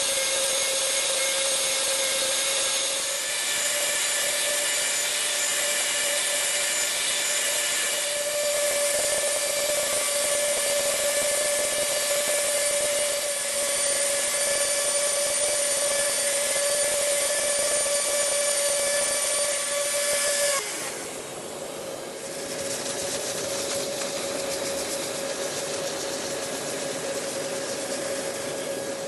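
CNC router spindle cutting a polycarbonate sheet, a steady machining noise with the dust-extraction vacuum running. About two-thirds of the way through the cutting noise drops away, leaving the vacuum running steadily.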